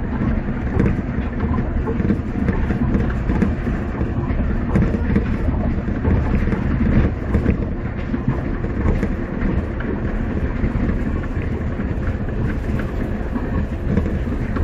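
A Yamaman Yukarigaoka Line rubber-tyred people-mover car running along its concrete guideway, heard from inside the cab. A steady running noise of tyres and running gear, with a faint steady hum.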